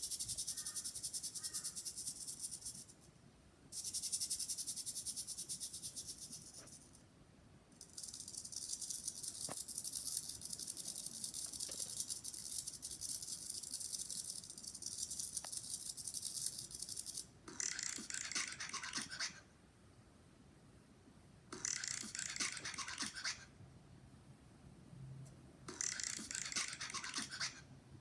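High-pitched buzzing rattle in repeated bursts, from a sound recording played back. The first three bursts are long, and three shorter bursts follow that sound somewhat lower.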